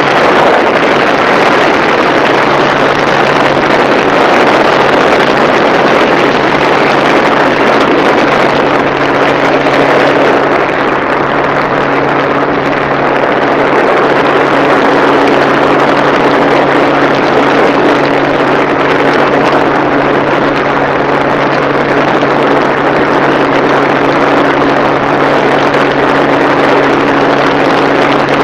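Loud, steady mechanical rushing noise with a low hum, like a motor running; a second, higher hum tone joins about nine seconds in.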